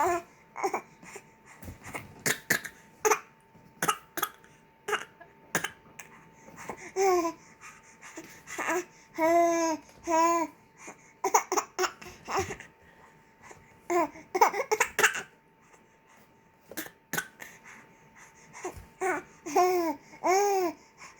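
A baby fake coughing: a string of short, forced coughs, mixed with babbling and laughing sounds whose pitch rises and falls.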